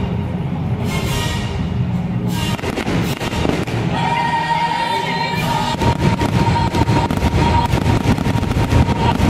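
Fireworks show music playing loudly, with fireworks shells bursting and crackling over it; the bangs and crackle grow dense past the middle.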